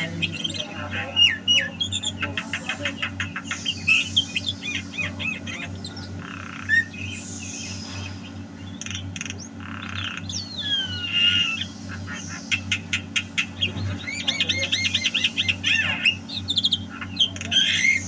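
Javan myna (jalak kebo) in full, nonstop song: fast runs of repeated chattering notes, whistled up-and-down glides and harsh squawks, over a steady low hum.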